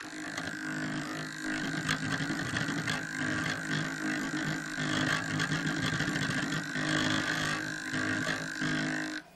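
Model diesel locomotive running under power: a steady mechanical whine with a fast rattle of small clicks. It starts abruptly as the power comes on and cuts off suddenly near the end.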